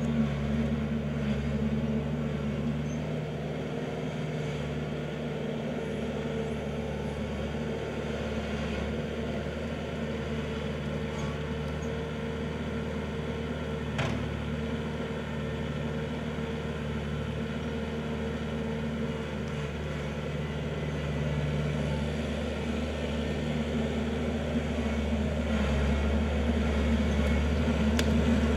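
Kubota L4400 tractor's four-cylinder diesel engine running steadily, with one sharp click about halfway through. The engine gets louder over the last few seconds.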